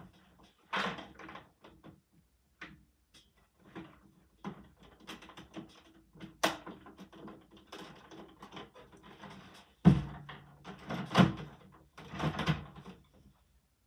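Lego plastic baseplates and bricks being handled: scattered clicks and brief rubbing, with louder knocks about ten and eleven seconds in.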